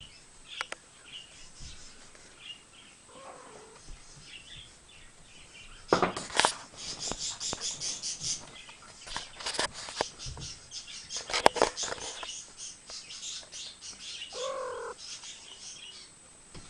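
Rapid, high-pitched chirping from small animals, densest through the middle, with a few sharp clicks and a short pitched cry near the end.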